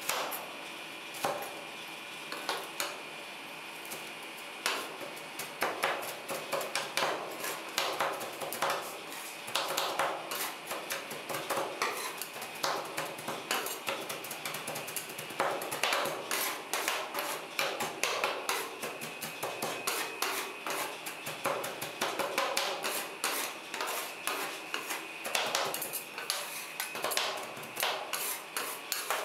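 Two metal spatulas chopping and tapping on a stainless-steel cold plate, breaking a chocolate wafer bar into crumbs for rolled ice cream. A few scattered strikes at first, then rapid, irregular clacking from about five seconds in.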